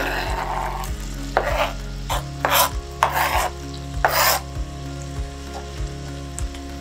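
Chopped celery and onion scraped off a cutting board with a knife and dropped into a stainless steel pan of hot melted butter: several short scrapes and clatters in the first half, then a quieter sizzle as the vegetables start to fry.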